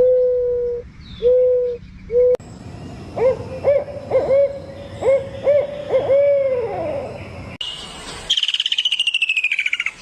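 Animal calls: a run of steady, low hooting notes, some with quick rising swoops, then a high, fast pulsing trill that falls slowly in pitch from about eight seconds in.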